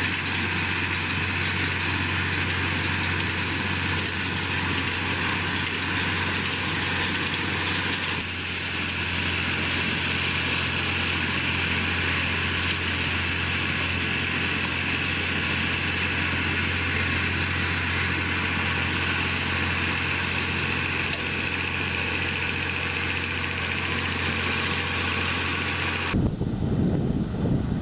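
Tractor engine running steadily at a constant speed: a low hum with a steady high whine above it. Near the end the sound cuts to a different recording with a rougher low rumble.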